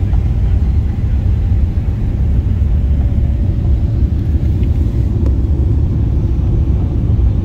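Steady low rumble of a Boeing 777-300ER airliner heard from inside the cabin, with a faint thin tone above it about halfway through.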